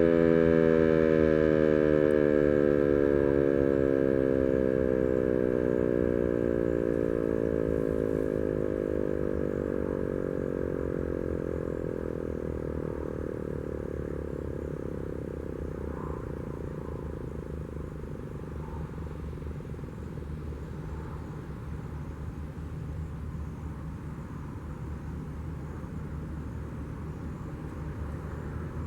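ASC T-121 outdoor warning siren winding down at the end of its test, its tone sliding steadily lower and fading away over roughly the first half. A low, steady rumble of background noise is left.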